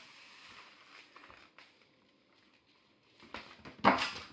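A hand broom brushing and rustling on a tatami mat: a few faint scratches in the first second or so, then several short swishes near the end, the loudest about four seconds in.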